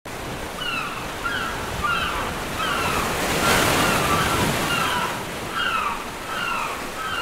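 A rushing swell of noise like surf, peaking about halfway through, under a small bird's short falling chirps repeated about once or twice a second.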